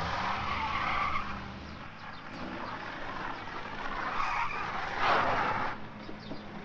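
A BMW sedan's tyres skidding and scrabbling on a gravel driveway as the car lurches forward, with its engine running. There are two louder surges, one at the start and the loudest about five seconds in.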